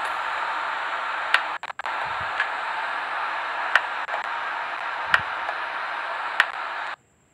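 Steady hiss with five faint clicks spread through it, dropping out briefly twice and cutting off abruptly to dead silence near the end.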